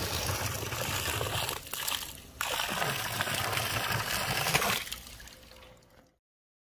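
Water pouring out of a tipped live-bait bucket and splashing down a concrete edge, with a brief break about two seconds in. It trails off about five seconds in.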